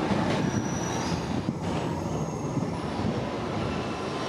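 Nishitetsu 600 series electric train pulling away, its wheels rumbling steadily on the rails, with thin high-pitched wheel squeals as it runs into the curve.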